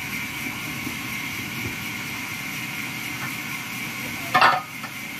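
Short burst of metallic clanking about four seconds in as a steel log clamp is moved on the bandsaw mill's steel carriage frame, over a steady hiss.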